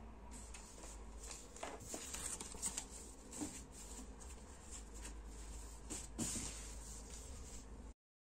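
Paper rustling and crackling as loose sheets and textbook pages are handled and turned, in short clusters over a low steady hum; it cuts off abruptly near the end.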